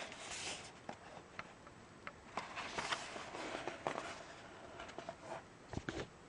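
Rustling and light tapping of glossy cardboard and paper as a DVD box set's printed panels and photo pages are handled and flipped, with a couple of sharp clicks near the end.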